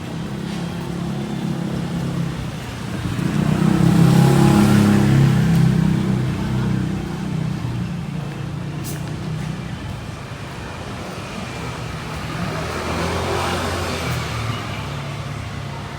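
Street traffic: motor vehicle engines running, with one vehicle passing close and loudest about four seconds in, and another, quieter one passing near the end.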